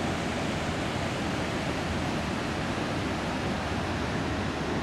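Steady rushing of flowing river water, an even hiss that does not rise or fall.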